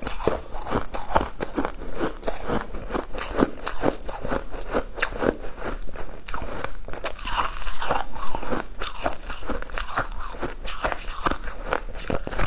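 Biting and crunching into a hard, frosty pink crystalline slab, with many sharp crunches in quick succession and chewing between them.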